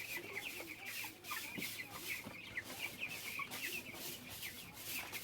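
A flock of young broiler chicks peeping continuously, many short high chirps overlapping.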